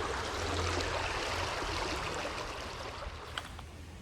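Water of a small trout stream rushing over rocks, a steady rush that fades away over the last second or so.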